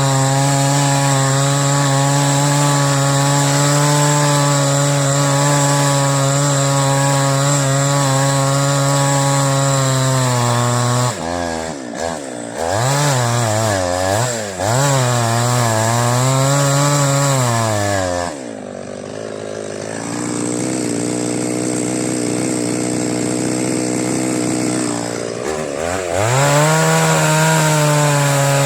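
Two-stroke chainsaw cutting wood at high revs. Partway through, its pitch dips and wavers as the chain bogs in the cut. It then drops to a quieter, lower running speed for several seconds before revving back up near the end.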